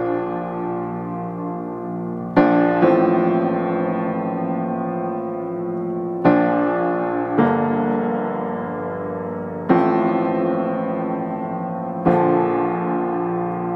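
Background piano music: slow, sustained chords, a new one struck every few seconds and left to ring out and fade.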